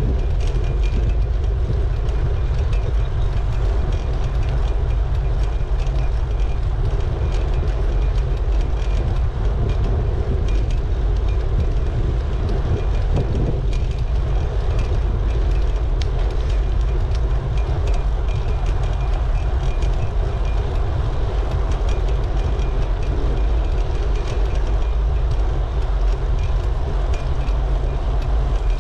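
Wind buffeting the microphone of a camera carried on a moving bicycle: a steady, heavy low rumble that does not let up.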